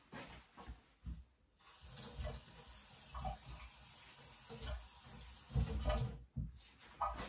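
Kitchen tap running in a steady stream for about four and a half seconds as a knife is rinsed under it, with knocks and clunks of handling at the sink before it starts and near the end.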